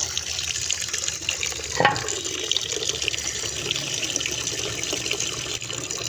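Water running steadily from a tap into a pigeons' drinking container as it fills, with a single knock about two seconds in.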